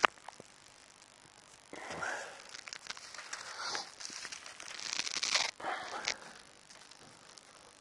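Bible pages being leafed through in search of a passage: papery rustling and page flips from about two seconds in to past five seconds, with a short flurry just after, and a single sharp click right at the start.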